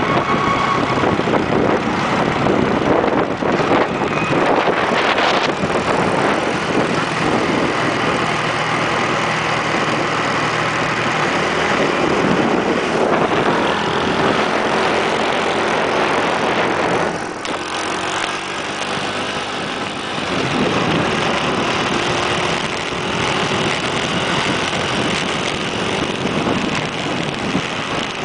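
Motorbike engine running under way with heavy wind rushing over the microphone; the engine pitch slides up and down as the speed changes, and it eases off briefly about two-thirds of the way through.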